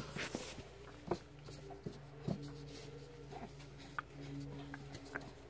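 Light clicks and taps of small toys being picked up and handled on a wooden shelf, a few scattered knocks, over a faint low hum that comes and goes.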